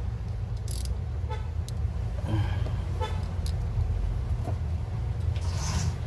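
Irregular metallic clicks and taps of a hand wrench working the bolt on an air-conditioning high-pressure pipe, tightening it, over a steady low hum.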